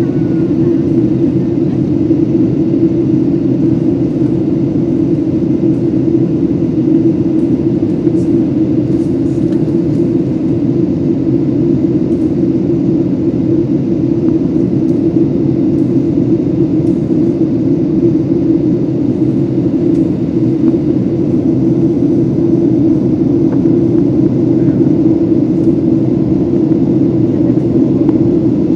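Steady cabin drone of a Boeing 737-700 in flight on descent: engine and airflow noise with a strong low hum that holds level.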